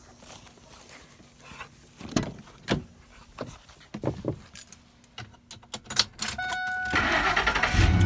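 Footsteps, knocks and key clicks as the driver's door of a 2003 Ford F-150 is worked, then a steady warning chime. About seven seconds in, the starter cranks and the 5.4L V8 fires, running with the number-one ignition coil unplugged for a noid-light test of its circuit.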